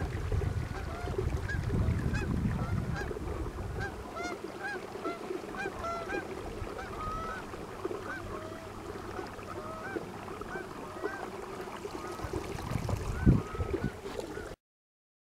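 A flock of geese honking, many calls overlapping and repeating without pause. A low rumble runs under the first few seconds, and a single thump comes near the end.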